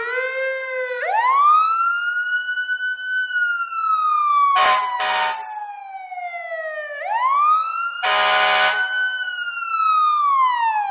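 Wailing emergency-vehicle siren, dubbed in as a sound effect for a mock ambulance: its pitch sweeps up quickly and then slides slowly down, twice. Short harsh blasts cut in, two quick ones about four and a half seconds in and a longer one at about eight seconds.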